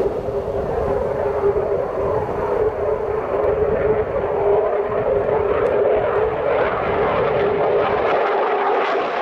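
Mitsubishi F-15J fighter in a display flypast, the steady noise of its twin turbofan engines growing harsher and more hissing over the last few seconds as the jet comes nearer.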